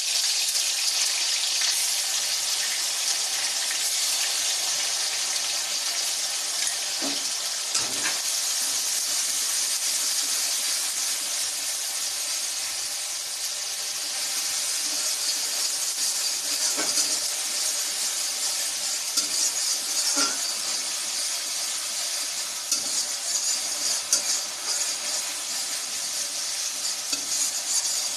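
Onion paste sizzling as it fries in hot oil in a pan, stirred with a spatula that knocks and scrapes against the pan every so often.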